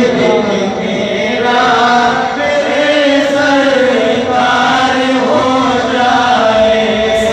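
Men's voices chanting a naat, an Urdu devotional song in praise of the Prophet, into microphones, with long held, wavering notes.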